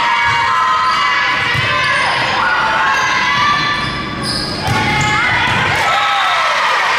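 A volleyball being hit and bouncing on a hard gym floor during play, amid high squeaks and shouts from players and spectators.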